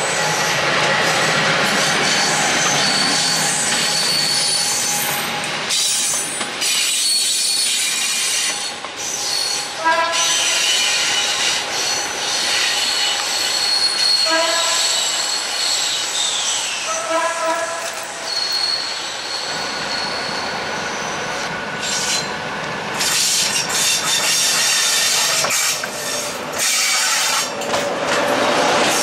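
Passenger train of double-deck coaches behind a CFR electric locomotive rolling through the station, wheels squealing, with three short double horn toots at about ten, fourteen and seventeen seconds in. From about twenty seconds in, a diesel-hydraulic shunting locomotive's engine is running.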